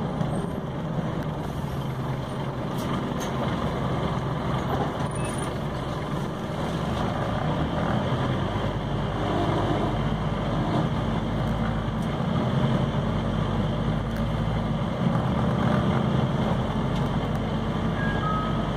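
Scania OmniCity CN270UB city bus under way, heard from inside: the diesel engine runs with a steady low drone over road and cabin noise. The engine's low note swells about halfway through, as if the bus is pulling away or speeding up.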